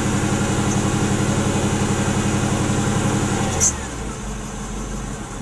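Mercedes AMG 55 V8 engine held at raised revs in drive against the brakes, under load and over-fuelling. About two-thirds of the way in there is a click and the revs drop back to a lower, quieter idle.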